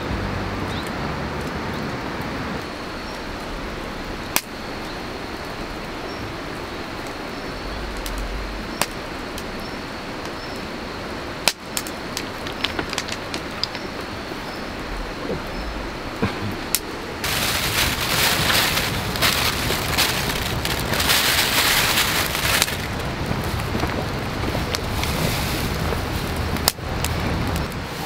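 Steady hiss of rain with scattered sharp ticks of drops. The rain grows louder and hissier for about five seconds a little past the middle.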